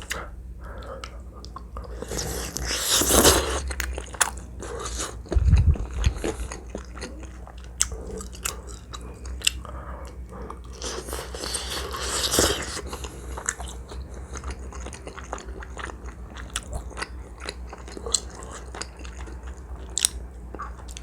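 Close-miked eating sounds: wet chewing and mouth smacks with many short clicks, and two louder, longer stretches about three and twelve seconds in.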